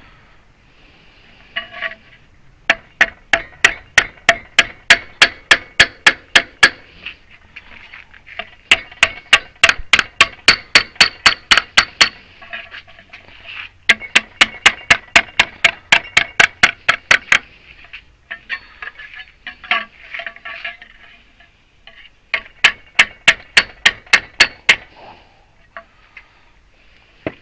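Hammer blows on copper sheet, about three strikes a second, in four runs of several seconds each with short pauses between, as the sheet is shaped into a cap.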